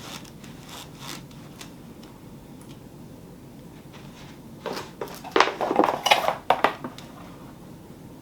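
Objects being handled: faint rustling, then about two seconds of louder clattering and rustling from about halfway through.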